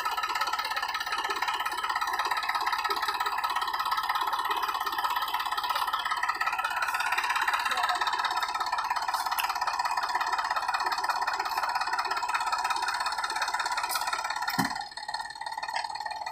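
Sonalika DI 35 tractor's diesel engine running hard under heavy load as it tries to pull a sand-laden trolley out of a rut. The steady engine drone drops off abruptly near the end.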